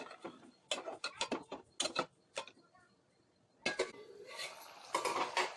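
Kitchen clatter: a quick, irregular run of sharp clicks and knocks, a pause, then a busier rattle near the end, like utensils and dishes being handled.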